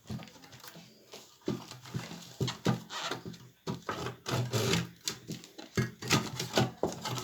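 Irregular clicks and knocks of hands handling the opened radio speaker box and its parts, with a few short pitched sounds in between.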